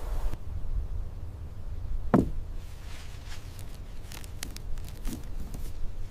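A single dull knock about two seconds in, then a few light clicks and rustles, as bunches of grapes are laid by gloved hands into a plastic harvest bin.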